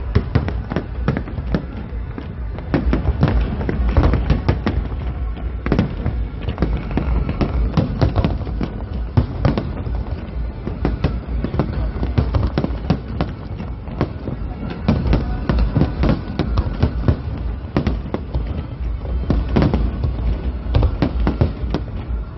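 Fireworks display: a dense, continuous barrage of aerial shells bursting, several bangs and crackles every second with no pause, over music underneath.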